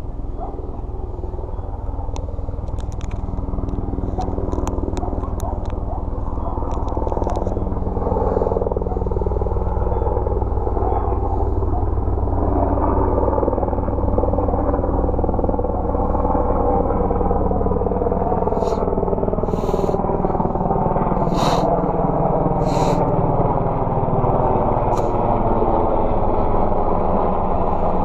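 A continuous low engine rumble, as of a passing motor vehicle, growing slowly louder, with a few short sharp clicks over it.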